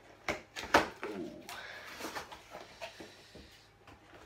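A cardboard toy box being worked open by hand: two sharp taps of card within the first second, the second the loudest, then scraping and rustling of cardboard.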